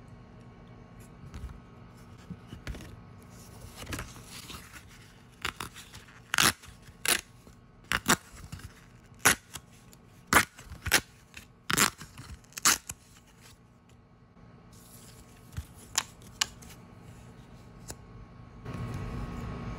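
Paper scratch-off lottery tickets being handled and pulled apart: a run of about a dozen short, sharp, crisp snaps over several seconds, then a few fainter ones. Near the end, a steady scraping noise sets in.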